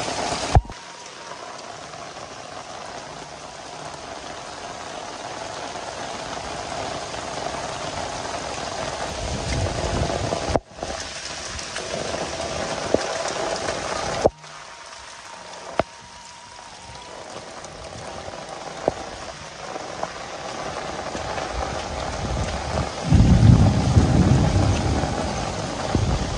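Heavy downpour falling steadily on roofs, trees and wet ground. A low rumble rises over it about three seconds from the end.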